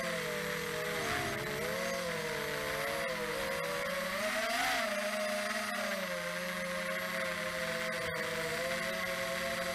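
Motors and propellers of an FPV multirotor drone in flight: a steady buzz of several close tones that waver up and down together. The pitch rises briefly about halfway through, then settles.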